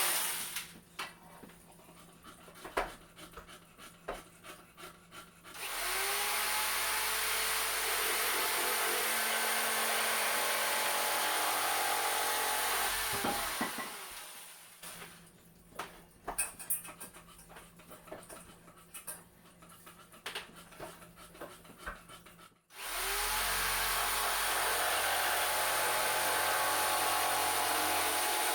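A handheld electric power tool runs twice, once for about eight seconds and once for about six near the end, each time spinning up at the start and winding down as it stops. Light clicks and knocks come between the two runs.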